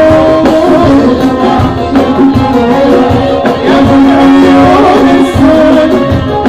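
Amplified live Gulf Arabic (Khaleeji) song music: a steady hand-drum beat under sustained, wavering melody lines.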